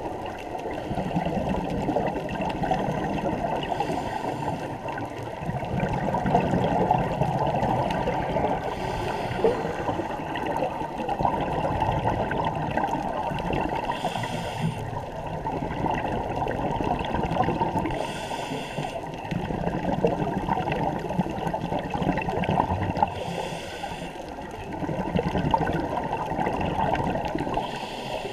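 Scuba diver's exhaled bubbles from a regulator, heard underwater: a burst of bubbling about every four to five seconds, five times, over a steady low rush of water.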